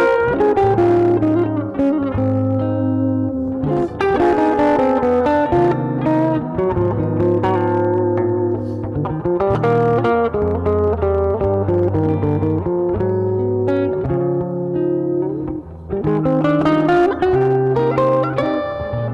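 Solid-body electric guitar playing an instrumental chorus: chords over changing low bass notes, with the top notes carrying the melody.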